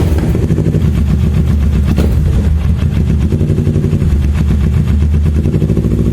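Kawasaki ER-6n parallel-twin engine idling loudly through an aftermarket exhaust, a deep, fast, uneven pulsing beat.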